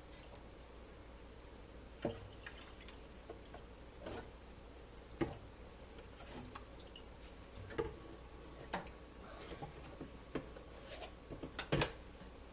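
Faint kitchen handling sounds: scattered light knocks and clicks of containers, one every second or two with a sharper pair near the end, and small dripping and trickling as beef broth is measured into a cup.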